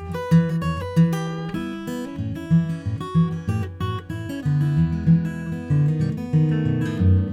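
Gibson J-200 Koa jumbo acoustic guitar, Sitka spruce top with a flamed koa back, being played: picked melody notes ring out over bass notes and chords in a steady rhythm.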